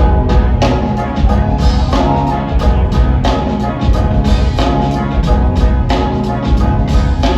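Live band playing without vocals: the drum kit and bass come in right at the start with a steady, driving beat under a repeating melodic part.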